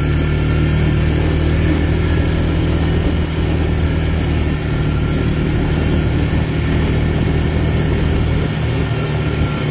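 ATV engine running steadily as the quad is ridden briskly along a dirt trail, its note holding even with no big revs.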